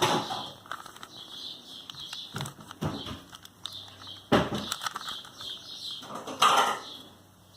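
Plastic Rubik's cube being turned: irregular quick clicks and clacks, with a few louder clattering bursts.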